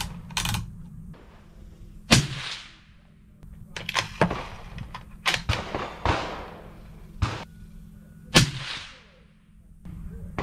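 Suppressed bolt-action hunting rifle fired twice, about six seconds apart, each shot a sharp crack with a short echoing tail. Fainter sharp clicks and knocks come between the two shots.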